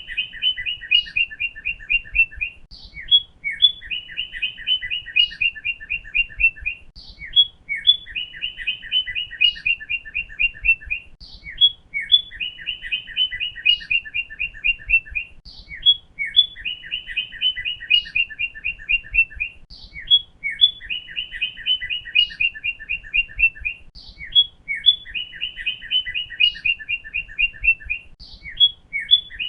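Northern cardinal singing: a song phrase of a few separate notes then a rapid run of quick slurred notes, repeated the same way about every four seconds.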